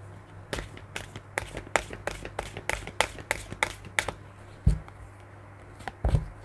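Romance Angels oracle cards being shuffled overhand by hand: a run of quick card slaps, about three a second, then a couple of louder knocks later on.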